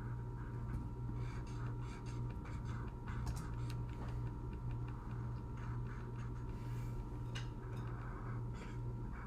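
Felt-tip Crayola marker scratching on paper in quick, irregular short strokes as it colours in, over a steady low hum.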